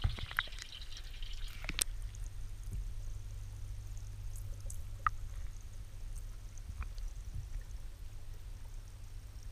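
Water pouring from a hose pipe into a garden pond, splashing with a few sharp clicks for about the first two seconds, then heard from underwater as a steady, muffled low rumble of moving water and bubbles with a couple of faint clicks.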